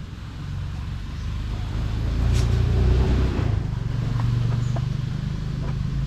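A motor vehicle's engine running, growing louder over the first three seconds and then holding steady.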